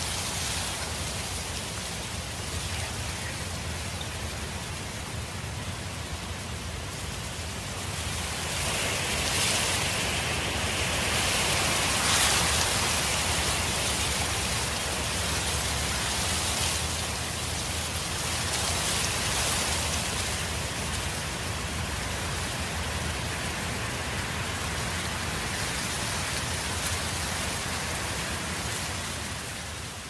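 Wind blowing steadily, swelling into stronger gusts about a third of the way in and again a little later.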